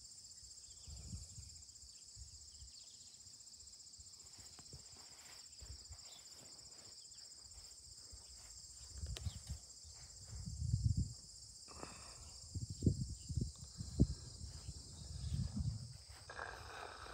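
Insects chirring steadily in a high, even band, with scattered low thumps and rumbles from about halfway through.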